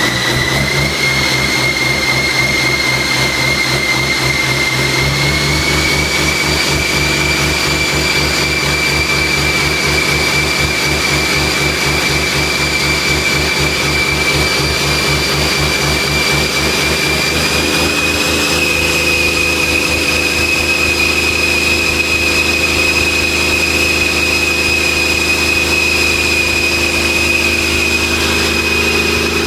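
Cummins QSM11 inline-six diesel engine running on a test stand above idle, its speed raised in steps. A strong high whine rides over the engine and climbs in pitch at each step, about a second in, around six seconds in and again around eighteen seconds in.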